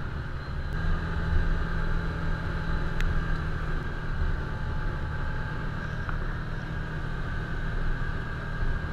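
Can-Am Commander 1000 side-by-side's V-twin engine running at a steady cruising speed, heard from the driver's seat, over a low rumble from the machine travelling on a gravel trail. One sharp click comes about three seconds in.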